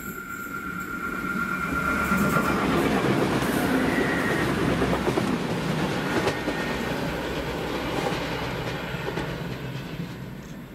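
A diesel multiple unit passing close and running away along the line: engine and wheel noise swell to a peak a few seconds in, then fade steadily. A high whine dies away in the first two seconds, and there is a sharp click about six seconds in.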